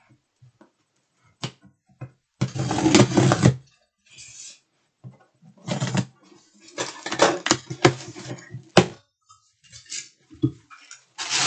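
Cardboard subscription box being opened and its contents handled: irregular bursts of rustling and scraping, with a few sharp clicks and knocks between quiet gaps.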